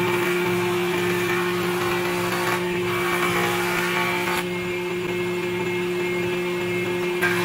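Combination woodworking machine running with a steady hum while a pallet board is fed across its jointer cutterhead. The planing noise of the blades on the wood fills about the first four seconds, then eases as the board is lifted off and only the machine runs.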